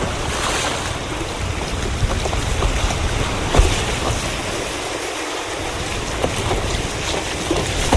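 Sea water sloshing and lapping around a sea kayak, with wind buffeting the GoPro microphone. Scattered short splashes and knocks run through it, the strongest about three and a half seconds in.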